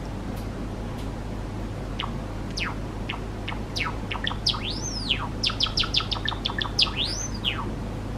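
Java sparrow singing. A few spaced chirps speed up about halfway through into a fast run of notes, which includes two long notes that rise and then fall.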